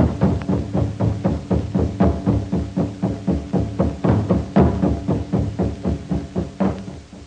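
Film score music: a steady, fast drum beat of about four strikes a second over low held notes, fading out near the end.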